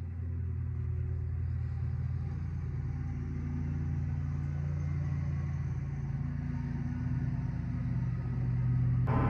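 Low, sustained bass drone of suspense background music, its notes shifting about six seconds in. A gong-like hit comes in just at the end.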